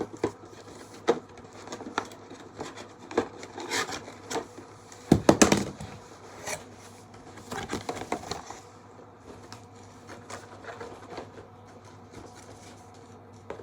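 Accessories being handled and set down on a table: scattered clicks, knocks and rubbing, with a louder cluster of knocks about five seconds in.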